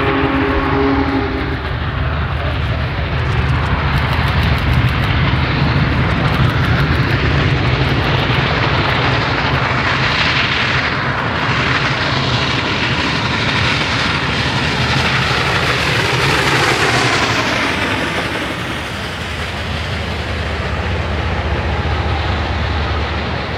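Union Pacific Big Boy 4014, a 4-8-8-4 articulated steam locomotive, passing with its train: a loud, steady roar with a deep rumble underneath. Its multi-note whistle is still sounding at the start and cuts off about a second and a half in.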